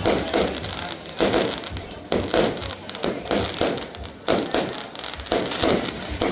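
Fireworks going off in quick succession, a dozen or so sharp bangs about two a second, each trailing off with a brief echo.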